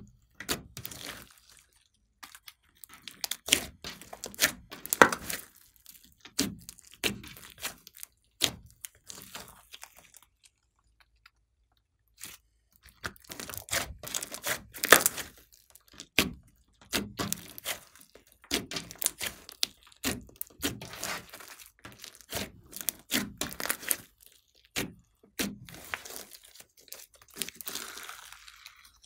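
Hands kneading, squeezing and stretching a large lump of glossy slime: irregular squelches and crackling pops of trapped air, with a pause of about two seconds around the middle.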